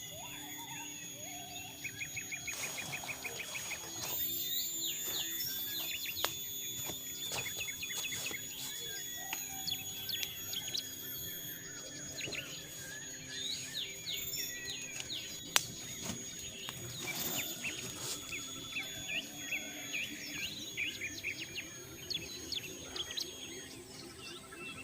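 Forest birds chirping and trilling in many short calls, over a steady high-pitched whine. A few scattered clicks are heard, with one sharp click about two-thirds of the way through.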